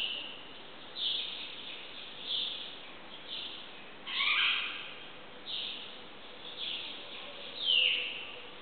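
Birdsong echoing in a courtyard: short, high calls falling in pitch, repeated about once a second, with one longer two-part call about four seconds in.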